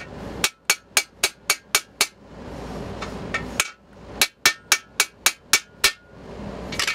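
Ball-peen hammer striking a balance shaft bearing driver, driving the inner balance shaft bearing into a Mitsubishi 4G63 engine block. Two runs of about seven quick blows, about four a second, with a pause and a single blow between them, ending as the bearing seats at its proper depth.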